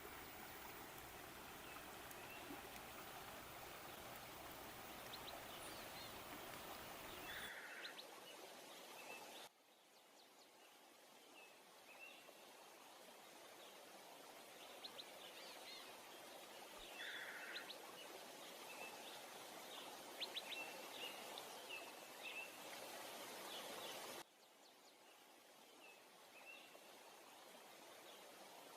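Faint steady rush of falling water with small birds chirping now and then. About a quarter of the way in the water noise drops away abruptly, leaving mostly the bird chirps over a soft hiss. The level drops again suddenly near the end.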